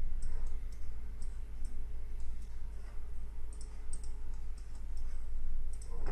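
Irregular clicking of a computer mouse, about twenty short clicks in uneven runs, over a steady low electrical hum.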